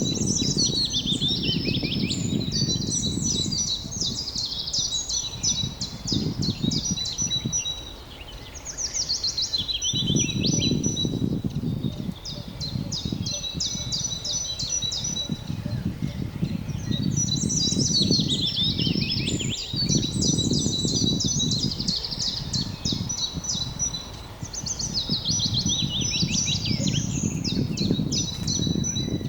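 A songbird singing the same song over and over, each phrase starting with quick falling sweeps and ending in high trills, with a few seconds' pause between phrases. A steady low rumble of outdoor noise runs underneath.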